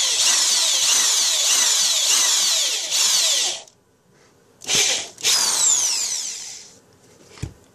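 Cordless drill spinning a step drill bit through a plexiglass sheet, the bit scraping and squealing as it bores out a pilot hole and heats the acrylic enough to melt it slightly. It runs for about three and a half seconds, stops, gives a short blip, then runs again for about a second and a half and trails off.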